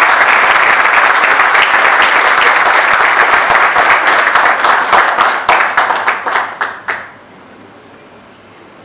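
Audience applauding: dense clapping from many hands that thins to a few scattered claps and stops about seven seconds in.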